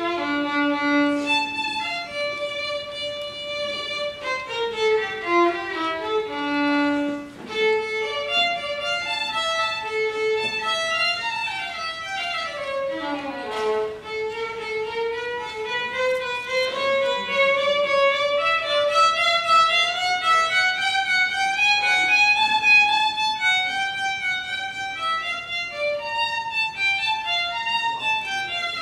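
Violin played with the bow: a fast-moving melody of quick notes, with a long climbing passage in the middle.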